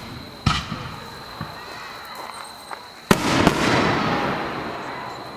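Fireworks shells bursting overhead. A sharp bang comes about half a second in and a couple of fainter pops follow; the loudest bang lands a little past three seconds, and its long tail fades out over about two seconds.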